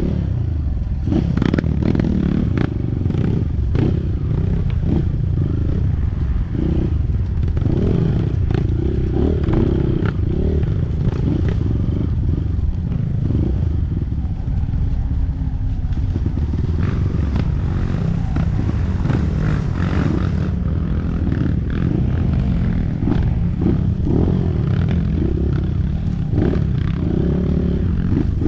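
Trail motorcycle engine running with revs rising and falling, with frequent rattles and knocks throughout.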